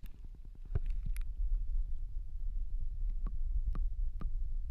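Low rumble on the action camera's microphone, with a few light clicks and knocks, one about a second in and three more later on.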